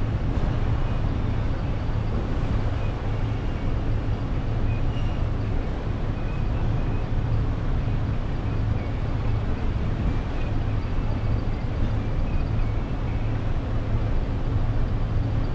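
Steady low road rumble of a car driving.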